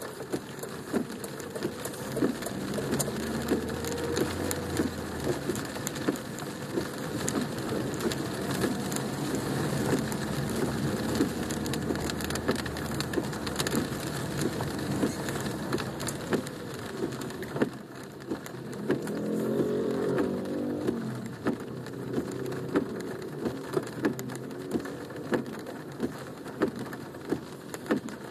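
Rain drumming on a car's roof and windows, heard from inside the cabin: a steady patter of drops with many sharp individual ticks over the low rumble of the car on the wet road. The rumble fades about two-thirds of the way through as the car slows to a stop.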